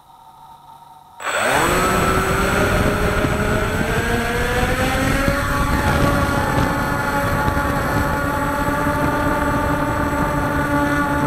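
Walkera Scout X4 quadcopter's brushless motors and propellers spinning up suddenly about a second in, heard from on board. The whine rises in pitch over the next few seconds as it lifts off, then holds steady.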